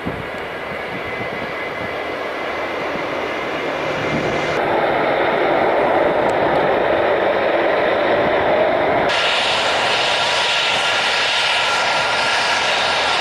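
Jet aircraft engines running loud and steady, with a noisy rush and a faint whine. The sound grows louder over the first few seconds and changes abruptly about four and a half and nine seconds in.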